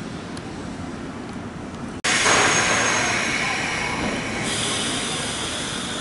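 JR West 201 series electric train pulling into a station platform: rolling noise and hiss with a steady high squeal from the wheels and brakes, starting suddenly about two seconds in after a quieter stretch of station hum. The squeal drops to a lower pitch partway through.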